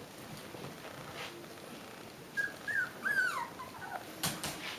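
Six-week-old Shiba Inu puppy whining in a few short, high, wavering cries about halfway through, followed near the end by two sharp knocks.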